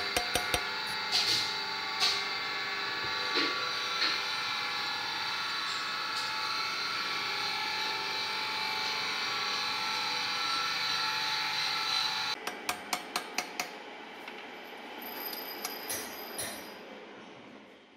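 Steady machine hum in a metal workshop, with sharp metal clicks and knocks as a tool is worked on a loosened prechamber nut in a cylinder head. The hum cuts off about twelve seconds in and is followed by a quick run of about eight clicks.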